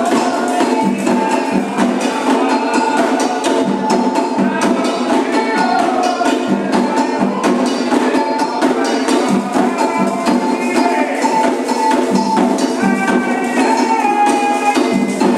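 Candomblé ritual music: atabaque hand drums and an agogô-type bell playing a steady, dense rhythm, with voices singing over it.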